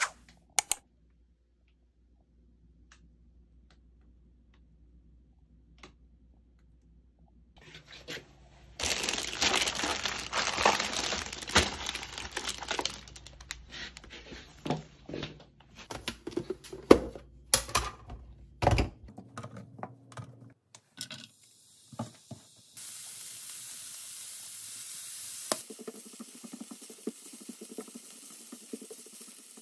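Plastic grocery packaging crinkling and rustling as it is handled and opened, with scattered clicks. Near the end, julienned carrots sizzle steadily in a pan.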